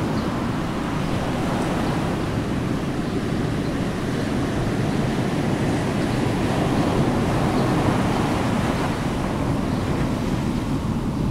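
Steady rushing noise like waves washing, swelling slightly a little past the middle.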